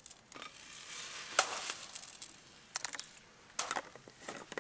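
A spoon scraping and tapping powder into a portable blender bottle, then the bottle's screw-on top being twisted on by hand: a few light scrapes, clicks and taps.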